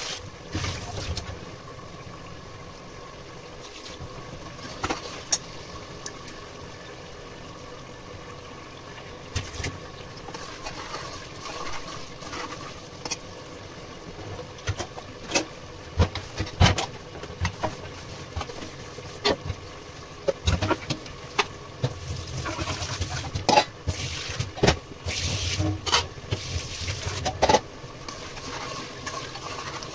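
Spiced liquid cooking in an open pressure cooker on the stove, a steady hum under scattered sharp pops and clicks. Near the end, knocks against the pot come thick and fast as a hand works in it.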